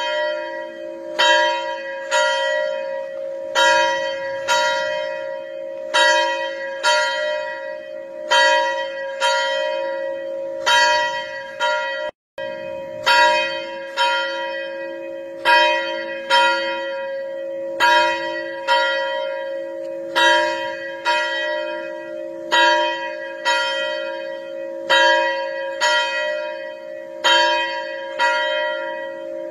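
A single church bell ringing, its strokes coming in pairs about every two and a half seconds, with a steady hum hanging on between strokes. The sound cuts out for an instant about twelve seconds in.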